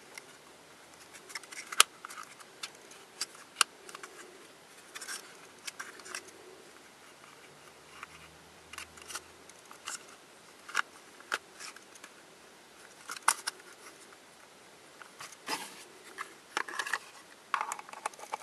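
Hard plastic pieces of a Twist Ball puzzle clicking and clacking at irregular intervals as they are handled and fitted together.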